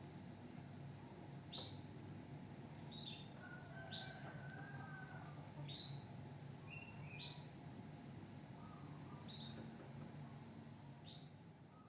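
Canary giving short, sharp call notes that drop in pitch, seven of them a second or two apart, with a faint soft warble between them, over a low steady hum.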